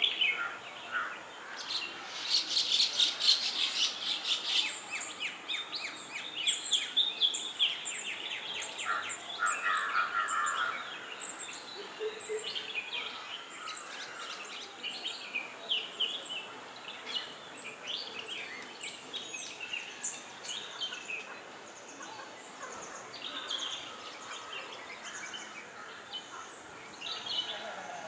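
Songbirds chirping and calling, many short overlapping notes, with a dense run of rapid chirps two to four seconds in.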